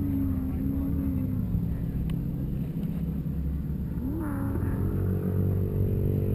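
Vehicle engine running with a low, steady rumble. Its pitch drops over the first second and a half and climbs again after about four seconds.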